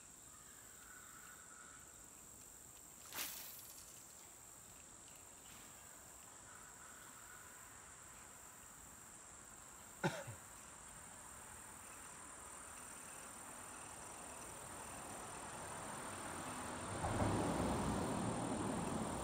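Quiet riverside outdoor ambience with a steady high-pitched drone of insects. Two sharp clicks come about 3 and 10 seconds in, and a louder rustling noise builds over the last few seconds.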